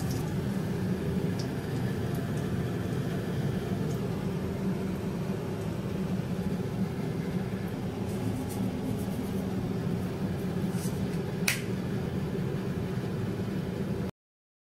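Steady low hum of a running fan or motor in a small kitchen, with a few faint ticks and one sharp click about eleven seconds in; the sound cuts off suddenly near the end.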